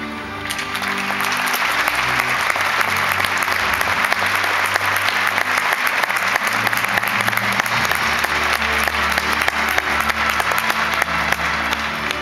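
A large audience applauding, the clapping swelling up about half a second in, over steady background music.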